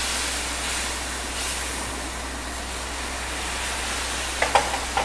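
Steady sizzling and bubbling of hot water just poured onto ghee-roasted water chestnut flour in a kadhai, stirred with a spatula. A few short clicks come near the end.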